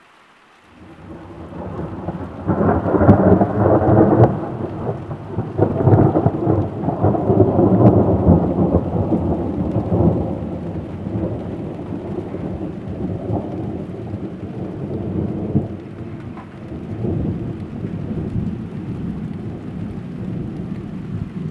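A long peal of thunder: it starts about a second in, builds over a couple of seconds to loud cracking rumbles, then rolls on with smaller swells and slowly eases off.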